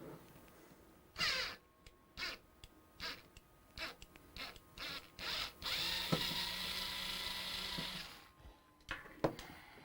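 Mechanical tool noises: a run of about ten short ratcheting clicks, then a small motor running steadily for about two seconds, and a couple of clicks near the end.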